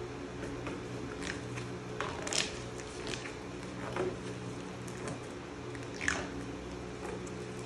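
Thin plastic wrapping crinkling and rustling in short bursts as it is peeled and pulled off a large acrylic print, over a steady low hum.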